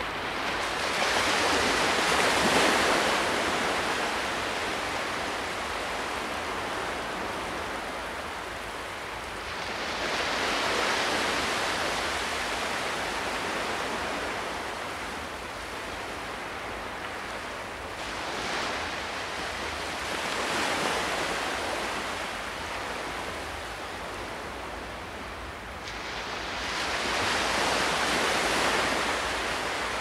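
Sea waves breaking and washing up a sandy beach: a steady rush of surf that swells loud and fades back about five times, with a softer hiss between the surges.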